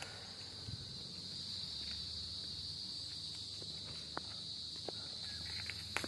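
Steady high-pitched drone of an insect chorus, with light footsteps on pavement and a few faint clicks.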